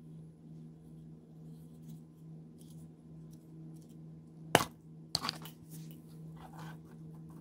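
Slime being squished and worked by hand, with one sharp loud snap about halfway through, a quick run of sticky crackles right after, and softer squelches near the end, over a steady low hum.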